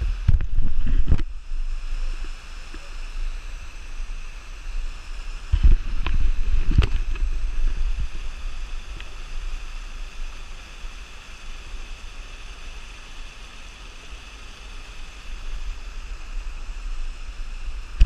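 Water falling and rushing over the rocks of a small double waterfall and creek, a steady hiss. Wind buffets the microphone with low rumbling gusts about a second in and again around six to seven seconds.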